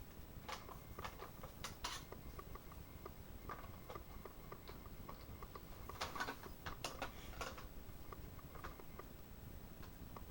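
Faint clicks and taps of hard plastic toy parts being handled and fitted together, in clusters about half a second in and again around six seconds in.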